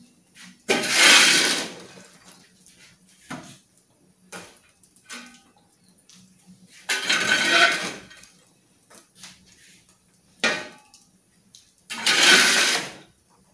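Long-handled metal shovel scraping up wood embers and spreading them across the brick hearth under the grill, loading it with coals to heat the cavity. Three scrapes of about a second each, near the start, in the middle and near the end, with light clinks between.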